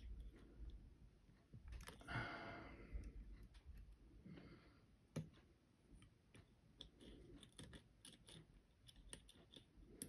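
Faint, scattered small metal clicks and light scrapes of a wire lever-lock pick and tension tool working the levers inside a five-lever Bulldog padlock, with a soft rustle about two seconds in.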